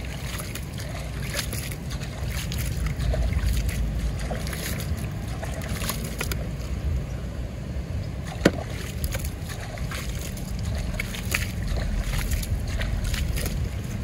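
Water splashing and sloshing in a plastic toy dump truck's bed as sand is rinsed out by hand, with scattered small plastic knocks and one sharp click about eight and a half seconds in.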